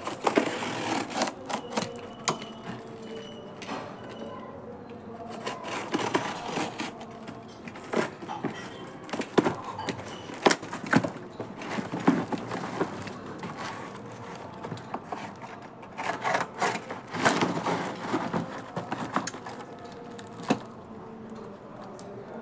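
Cardboard wrapping and packing tape being torn open and unfolded by hand: irregular crackling, ripping and rustling with sharp scrapes.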